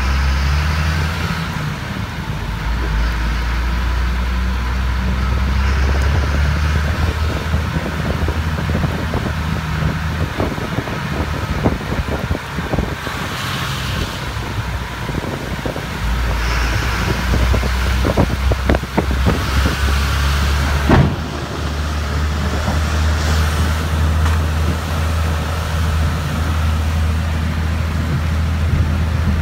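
Road vehicle's engine running with a low drone, heard from inside the cab while driving on a wet road. The drone drops away for a few seconds midway, and scattered knocks and rattles come in the middle stretch.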